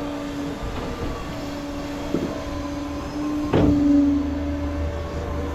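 Tow truck running with a steady hum, with a sharp clunk about three and a half seconds in as a deeper low rumble comes up.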